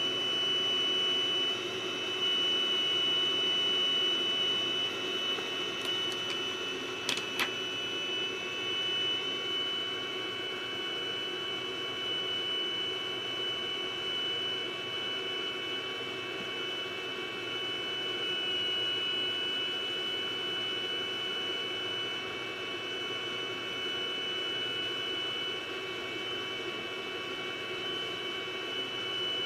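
2005 iMac G5 Rev A running with its cooling-fan noise and a steady high-pitched electrical whine and hum from the power circuitry. This is the power-supply noise of a faulty unit under load, which went away once the logic board was replaced. Two short clicks come about seven seconds in.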